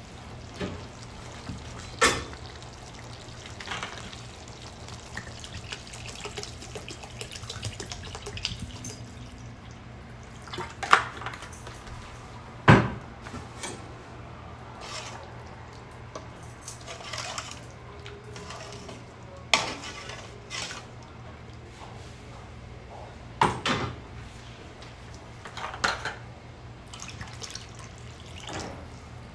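Kitchen clatter over a steady low hum: a handful of sharp clinks and knocks of a steel pan and utensils, spread out, with water being poured into the curry pan near the end.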